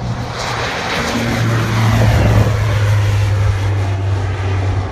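Twin-engine propeller airplane taking off: a steady low propeller hum over a broad engine-and-air noise that grows louder to a peak about two seconds in as the plane lifts off and climbs past, then eases slightly.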